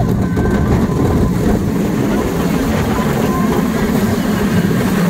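Alpengeist, a Bolliger & Mabillard steel inverted roller coaster, running at speed with its train in motion: a loud, steady rumble of the wheels on the track, mixed with rushing air on the microphone.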